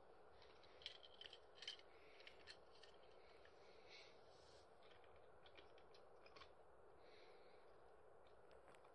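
Near silence with a few faint plastic clicks and taps as toy train cars are set on plastic track and coupled by hand, most of them in a short cluster about a second or two in.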